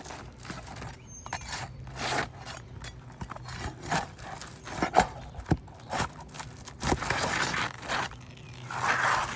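An old architectural asphalt shingle being pulled and torn out of the roof in pieces: irregular scraping and tearing with sharp knocks and clicks. The shingle is about 20 years old and breaks up as it comes away.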